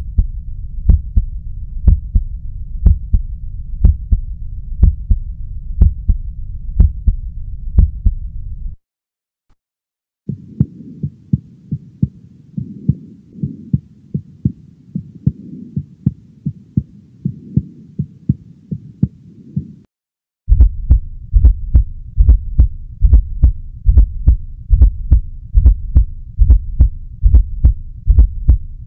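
Recorded human heart sounds: regular low thudding heartbeats. Three separate recordings play one after another, with a short silence between them about nine and twenty seconds in. The middle recording is quieter and has a steadier sound running between its beats.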